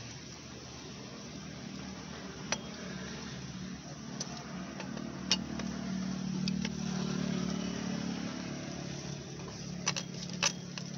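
Sharp metallic clicks and taps of a hand wrench on the crankcase bolts of a Honda EP1000 generator engine as they are undone, about six scattered clicks over a low steady hum that swells in the middle.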